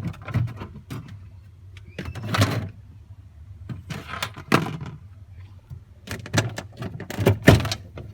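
Plastic interior panel of a refrigerator being worked loose and pulled off: scattered clicks and knocks, with longer scraping, rustling passes about two, four and seven seconds in.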